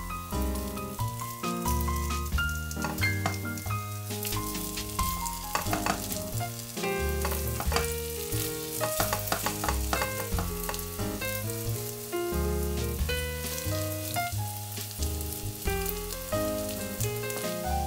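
Oil sizzling and crackling under grated-potato and egg fritters in a nonstick pan, with a silicone spatula scraping and pressing against them as they are flipped. Background piano music plays alongside.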